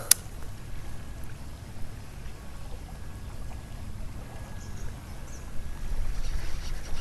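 Water and wind noise around a kayak on a river, a steady low rumble that grows louder near the end, with one sharp click just after the start.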